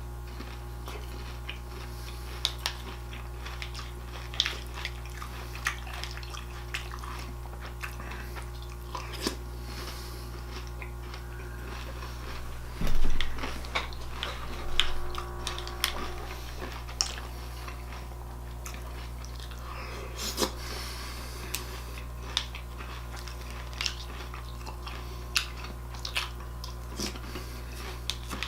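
Crunchy bran cereal being chewed, with short clicks of a spoon against the bowl, over a steady low hum. A louder burst of sound comes about halfway through.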